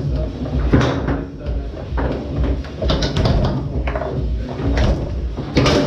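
Foosball in play on a Tornado table: the ball cracks against the men and the table walls in several sharp knocks, the loudest near the end, over background music.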